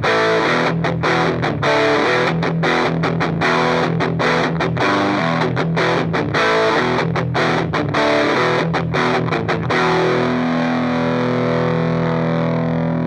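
2013 Gibson SG Future electric guitar on its bridge pickup, played through an overdrive pedal into a Marshall Origin 50 amp: a distorted rock riff of choppy chords with short stops between them. From about ten seconds in, one chord is left ringing until it is cut off at the end.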